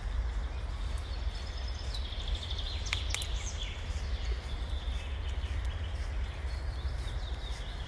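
Outdoor ambience: a steady low rumble with faint bird chirps, busiest a couple of seconds in, and a few sharp clicks about three seconds in.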